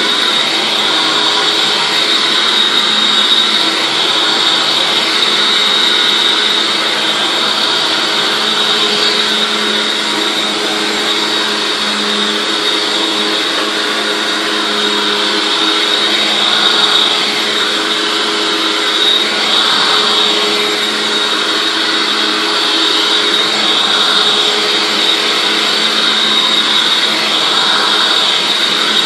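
Hoover WindTunnel Anniversary Edition self-propelled upright vacuum cleaner running, a steady high-pitched whine over a lower hum.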